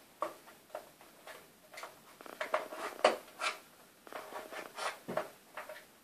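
Plastic side panel of a Kyocera laser printer being worked off by hand: an irregular run of small clicks and knocks as its snap catches are pried loose, the loudest about three seconds in.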